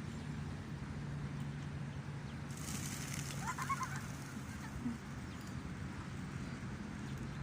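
A bird gives a short run of calls about three and a half seconds in, over steady outdoor background noise with a low hum.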